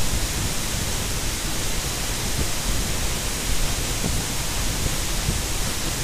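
Loud, steady rushing of a waterfall, with uneven low rumbling underneath.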